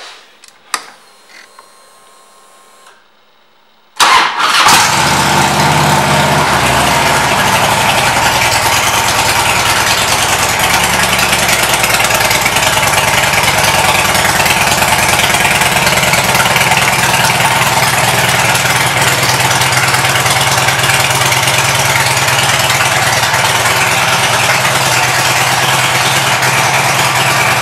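The 2006 Harley-Davidson Ultra Classic's Twin Cam 88 V-twin starts about four seconds in and settles into a steady idle through its Rinehart exhaust.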